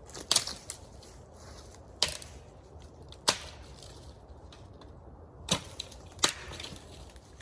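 Branches being cleared from a campsite: five sharp cracks of wood at uneven intervals.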